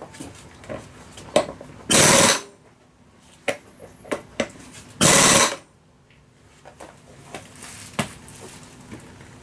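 Pneumatic impact wrench fired in two short bursts about three seconds apart, most likely tightening the rear axle nut of a scooter, with clicks and knocks of tools in between.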